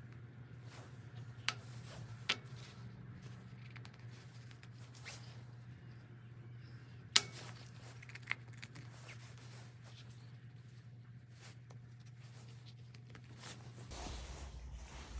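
Small sharp clicks and knocks of wooden joinery pieces being handled, four in all, the loudest about seven seconds in, over a low steady hum that changes near the end.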